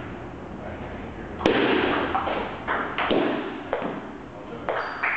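Table tennis rally: the ball clicking off paddles and the table in a quick run of sharp hits, the first and loudest about one and a half seconds in.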